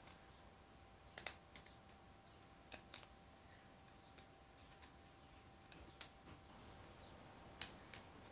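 Scattered short, sharp clicks and ticks, about a dozen, as a pointed hand tool picks and scrapes leftover PLA out of a small 3D-printed part.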